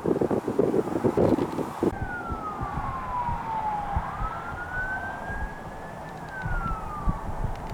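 Wind buffeting the microphone for about two seconds, then an emergency vehicle siren wailing: one slow tone that falls, rises and falls again.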